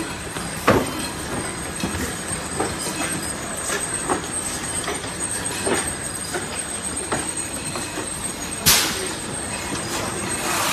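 Packaging-line machinery running: a steady mechanical din with irregular knocks and clattering, and one sharp bang followed by a brief hiss about nine seconds in.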